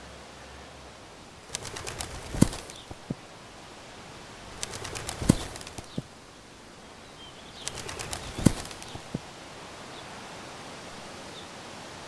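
Bird wing-flapping sound effect: three flurries of rapid flaps about three seconds apart, each with a sharp thump near its end, over a steady hiss of outdoor ambience.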